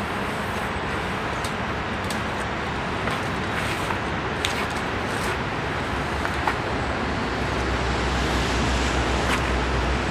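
Scattered light knocks and taps as a large flat desktop is slid out of a car trunk, stood on end and carried off, over a steady rushing background noise. A low rumble comes up about seven and a half seconds in.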